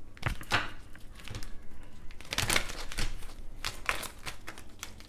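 A deck of tarot cards being handled and shuffled by hand: a run of irregular soft clicks and flicks of card against card.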